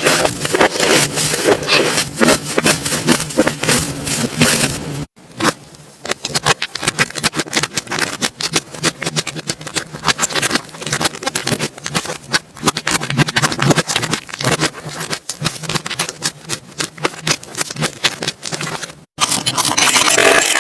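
Slime being squeezed and stretched by hand close to the microphone: a dense stream of sticky crackles and pops. It breaks off briefly about five seconds in, comes back quieter, and breaks off again near the end.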